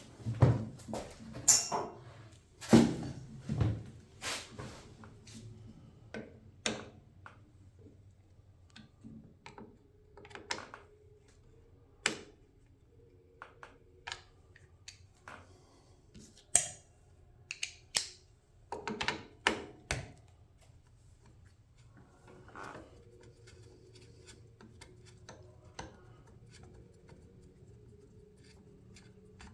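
Irregular clicks, clinks and knocks of hand tools and metal parts being handled while working on a lawnmower, busiest and loudest in the first few seconds, then scattered, with a faint steady hum underneath.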